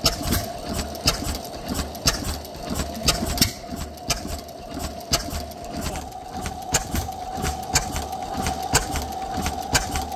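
Early Capel's Otto-type gas engine with hot-tube ignition being started, its flywheel turned by hand: a sharp click about once a second over a steady tone.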